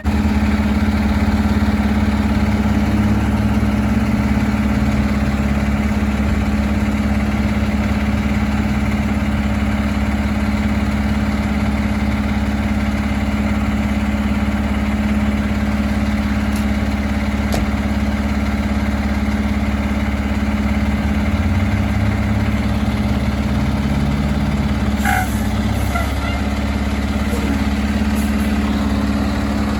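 Fire truck's diesel engine idling steadily, a constant low hum with one strong steady tone.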